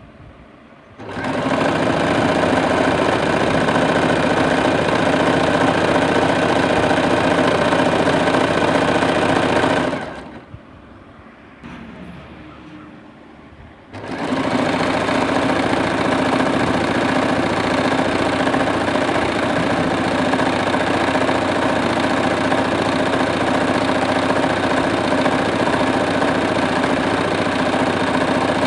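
Sewing machine stitching a patch, running steadily. It starts about a second in, stops for about four seconds near the middle, then starts again and keeps running.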